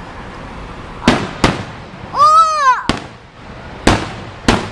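Aerial firework shells bursting overhead: five sharp bangs, two close together about a second in, one near three seconds, then two more near the end. Between them comes one high rising-and-falling call.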